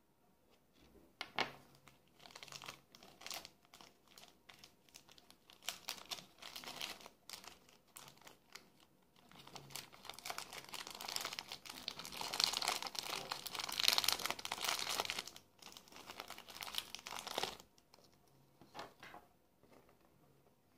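Small clear plastic bag of spare silicone ear tips crinkling as hands handle and open it, with scattered rustles and light clicks at first and a long, dense spell of crinkling in the middle that is the loudest part, then a few quieter rustles as the tips are set out on the table.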